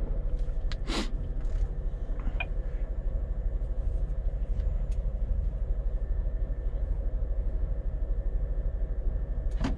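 Scania truck's diesel engine idling steadily with a low, even rumble while the truck waits in traffic, with a short sharp click about a second in.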